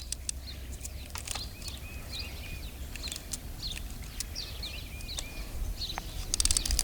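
Songbirds chirping and calling in the background, with many short falling chirps and a run of repeated arched notes, over a steady low rumble. A few light clicks come and go.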